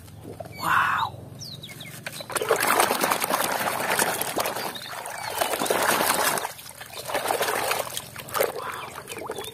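Muddy water sloshing and splashing in a plastic tub as a hand churns the mud and swishes a toy train through it, in uneven waves from about two seconds in.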